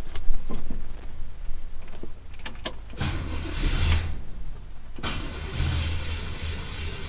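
1965 Impala's 327 small-block V8 turning over on the starter in two bursts, the first about a second long and the second about two seconds, after a few sharp clicks.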